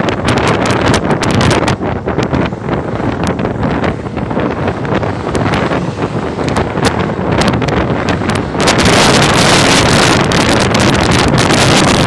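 Wind buffeting the microphone of a phone on a moving motor scooter, a dense rushing noise with frequent crackles; it becomes louder and harsher about nine seconds in.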